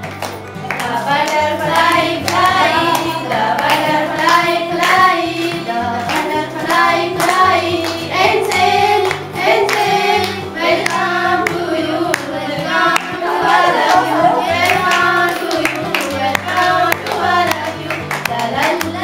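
Children singing a song about a butterfly flying, with a 'la la la' refrain.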